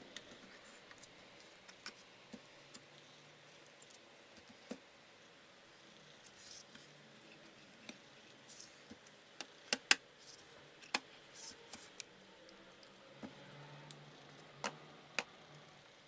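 Plastic clicks and snaps from an early-2009 Mac mini's casing as it is handled and pressed back together during reassembly. There are scattered light clicks, a cluster of sharper snaps about ten seconds in, and two more near the end.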